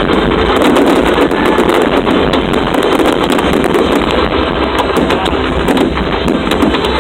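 Fireworks going off in rapid succession: a dense, continuous crackle of many sharp reports with no break.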